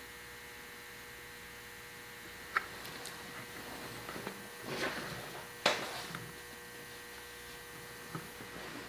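Faint, steady electrical mains hum, broken by a few light clicks and knocks and one soft rustle.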